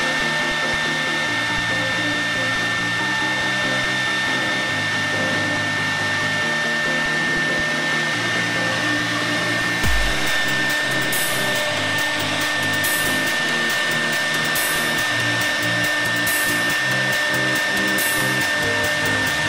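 CNC wood router spindle running with a steady high whine and hiss as it carves into a wooden board, over background music with changing bass notes and a beat.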